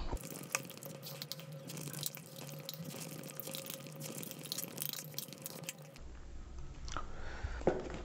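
Close-miked noodle eating: Maggi and chowmein being slurped off a fork and chewed, a run of wet, irregular mouth clicks and smacks. One sharper tap comes near the end.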